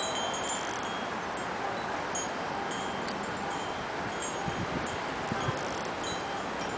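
Wind chimes tinkling over a steady outdoor hiss, with a few soft low crunches about two-thirds of the way through as a rabbit chews dandelion greens.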